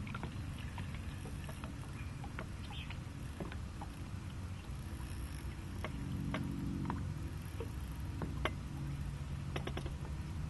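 Low rumble of wind and small waves against a boat, with scattered faint clicks and knocks.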